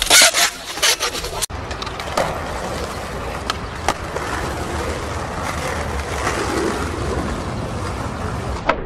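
Skateboard on concrete: in the first second and a half a cluster of loud knocks and scrapes in a skate bowl, then a steady rumble of the wheels rolling on pavement with a few sharp clicks of the board's tail and trucks.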